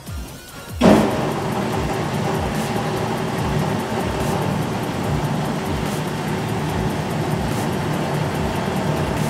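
Electric motor and pump of a two-post car lift starting suddenly and running steadily with a hum, as the lift is worked to lower the car.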